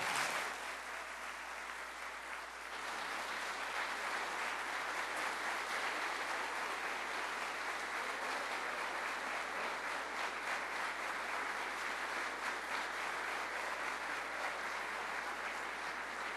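Audience applauding steadily, swelling a little about three seconds in.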